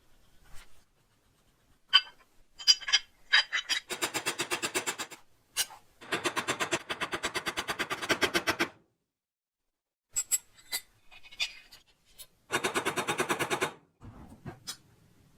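Clockwork mechanism of a wind-up tin toy running in three bursts of rapid, even clicking, the longest about three seconds, with scattered single metal clicks and knocks between the bursts.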